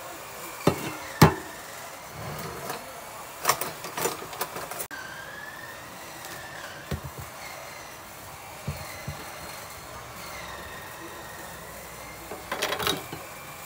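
Knife clicking and knocking as it cuts along a slit in a whole jackfruit's thick spiky rind and the rind is pried apart by hand: sharp clicks about a second in, a cluster around four seconds in, and more near the end. A faint wavering wail, like a distant siren, runs in the background through the middle.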